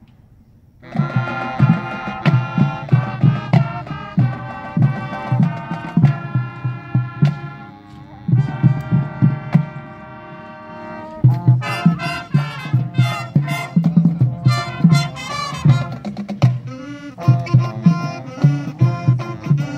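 High school marching band playing: brass and saxophones in full chords over a steady drum beat. The band comes in about a second in, and about eleven seconds in it switches to a busier, more percussive passage.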